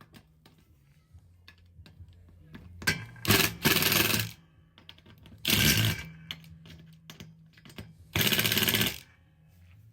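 Power drill driving screws in short bursts: one about three seconds in, another about five and a half seconds in, and a steady one of nearly a second about eight seconds in, over a faint low hum.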